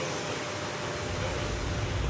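Steady mechanical hum and hiss of an automotive assembly plant, with a low rumble coming in about a second in.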